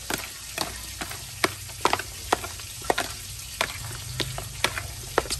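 Metal fork stirring chopped, vinegar-dressed fish and pork in a plastic tub, clicking sharply against the container about three times a second, irregularly.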